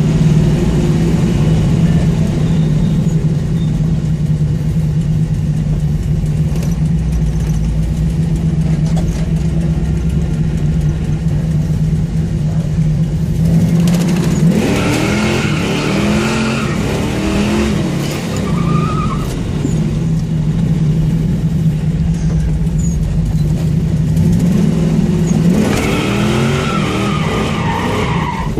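Car engine with an exhaust leak running at a steady pitch, then, from about halfway through, revved up and down in quick repeated sweeps, with a few more revs near the end.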